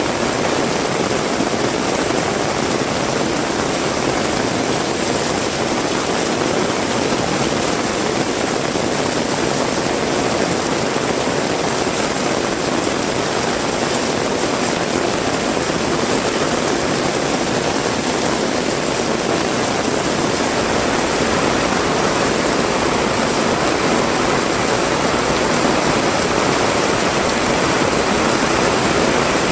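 Heavy rain pouring down steadily, growing slightly louder near the end.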